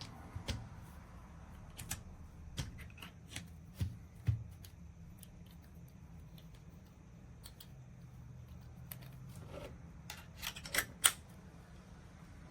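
Scattered light clicks and knocks, then a quick run of louder ones, the loudest about eleven seconds in.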